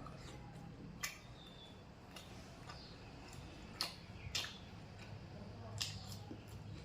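A person eating close to the microphone: chewing with short, sharp mouth clicks and smacks, four of them louder than the rest.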